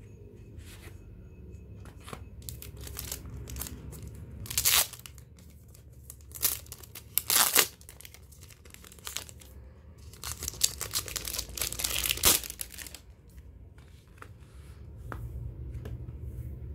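Clear plastic wrapping being torn open and crinkled off a hardcover postcard book, in three spells of sharp tearing and crackling with quieter handling between them.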